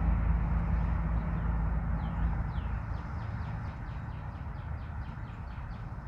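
Low rumble of a passing vehicle fading away over the first two or three seconds, then a bird singing a quick run of about a dozen short, high, falling notes.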